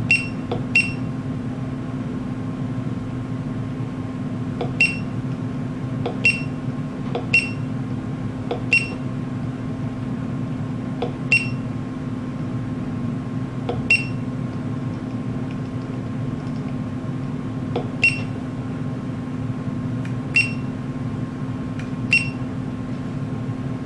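Short, high electronic beeps from an IML-RESI PD-Series resistograph's control unit, about a dozen at irregular intervals, as its navigation knob is turned and pressed to set the needle speed. A steady low hum runs underneath.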